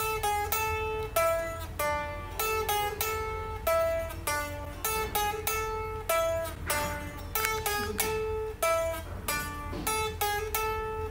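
Guitar music: a melody picked out on single plucked notes, a few notes a second, over a steady low hum.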